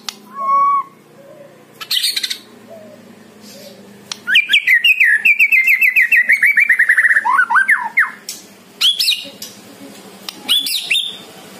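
White-rumped shama (murai batu) singing: a short clear whistle, a brief phrase, then a long fast run of repeated notes that slides slowly down in pitch for about four seconds, followed by two short phrases.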